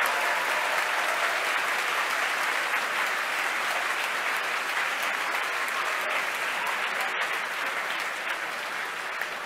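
Crowd applauding, slowly dying away.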